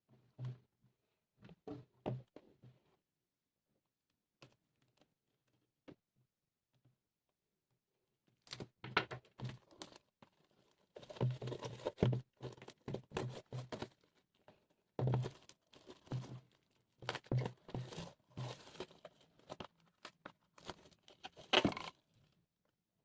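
Vinyl record packaging being handled and unwrapped: plastic or paper rustling, crinkling and tearing, with occasional light thumps. A short flurry comes at the start, then after a few quiet seconds a longer, busier stretch of handling runs until shortly before the end.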